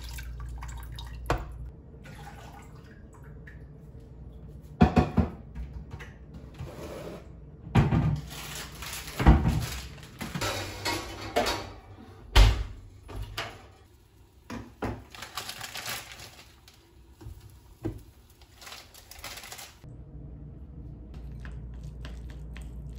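Cooking sounds at a stovetop: a pot, lid and utensils clinking and knocking now and then, with a stretch of denser water-like noise in the middle.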